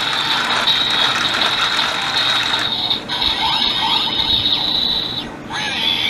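Kamen Rider Build DX Build Driver toy belt playing its electronic final-attack sound effect through its small speaker: a high-pitched whirring effect with a steady high tone and sweeping pitches, breaking off briefly about three seconds in and again near the end.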